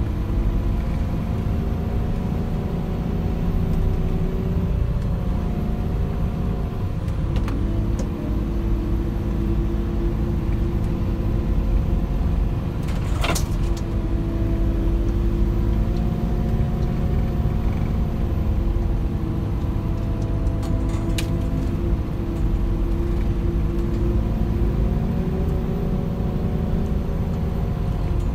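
Old D108A snow groomer's engine running steadily under load, heard from inside the cab as it breaks trail through deep snow. A few light clicks and one sharp knock about 13 seconds in.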